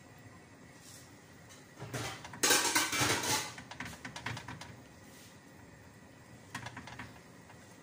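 A ceramic bowl and a basting brush clattering and scraping against a metal baking tray as chicken pieces are brushed with sauce. The loudest clatter comes about two and a half seconds in and lasts about a second, with a shorter rattle near the end.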